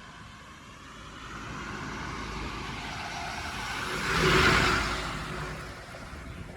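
A motor vehicle passing close by. Its engine and tyre noise swell to a peak about four and a half seconds in, then fade away.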